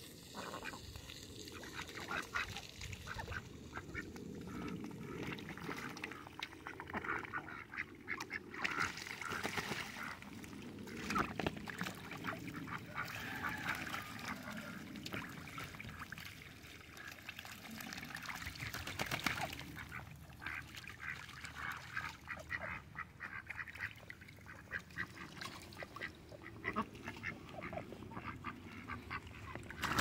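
Domestic ducks quacking on and off, many short calls overlapping.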